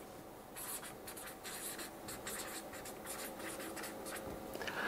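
Felt-tip marker scratching and squeaking across flip-chart paper in a quick run of short strokes as words are written, starting about half a second in.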